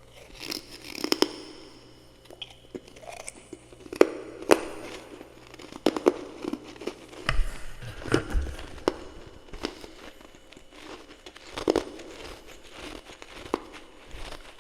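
Irregular crunches and crackles of powdery freezer frost, a dozen or so sharp cracks spread unevenly.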